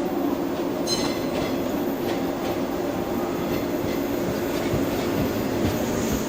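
A train running on the rails with a steady rumble and hum, and a brief high wheel squeal about a second in.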